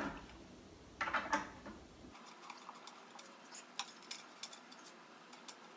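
Small metallic clicks and ticks of a hex key turning in bolt heads as the bolts are started into a wooden board: a few sharper clicks about a second in, then faint, irregular ticking.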